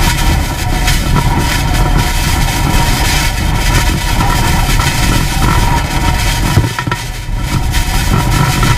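Hurricane-force wind buffeting the microphone: a loud, steady rushing noise that eases briefly about seven seconds in.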